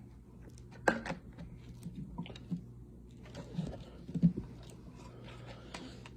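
Light plastic clicks, knocks and rattles of a handheld vacuum's accessory being handled and fitted, with the vacuum's motor off. The knocks are loudest about a second in and again a little past four seconds.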